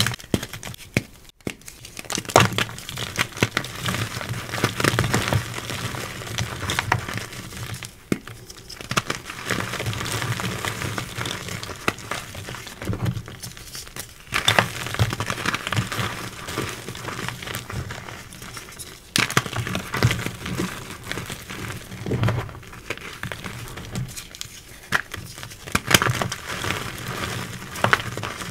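Hands crushing and crumbling blocks of reformed gym chalk: a continuous crunchy, gritty crackle, with sharp cracks as pieces snap apart.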